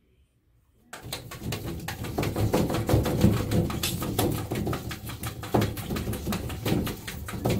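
A tabby cat pawing and rubbing at a mirror, its paws squeaking and bumping rapidly against the glass. It starts suddenly about a second in and keeps going.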